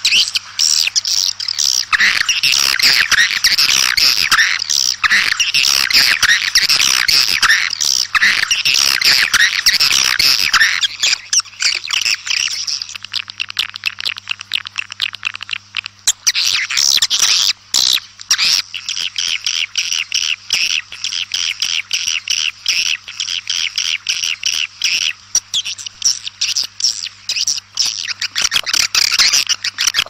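A flock of edible-nest swiftlets calling: dense, rapid high-pitched twittering and chattering, the kind of call recording played to lure swiftlets into nesting houses. The twittering thins out for a few seconds around the middle, and a faint steady low hum runs underneath.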